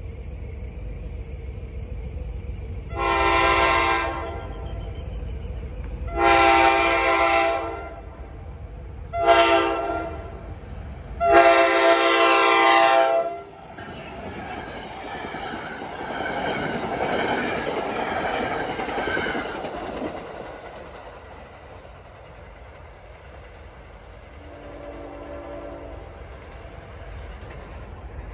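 The horn of New Jersey Transit ALP-45DP locomotive 4534 sounds the grade-crossing signal: two long blasts, a short one, then a long one. The train then rushes past, its wheels clattering on the rails, and the noise fades away.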